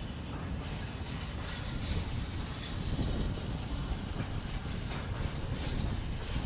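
Open-top freight wagons rolling slowly past during shunting: a steady low rumble of steel wheels on the rails, with irregular metallic rattling and clanking from the wagons' running gear and couplings.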